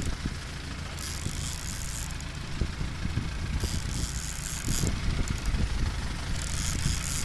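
A boat engine running steadily while trolling, a low rumble, with three short spells of high hissing about a second apart in time, one early, one mid-way and one near the end.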